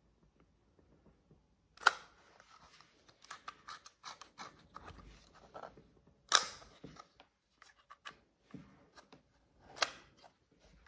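Small metallic clicks and scraping from a Fed 1 rangefinder camera's knobs being turned by hand, with three sharper clicks about two, six and ten seconds in.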